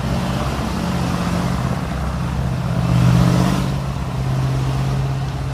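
Steady low engine rumble with a constant hum, a vehicle sound effect for a toy tank, swelling briefly about three seconds in.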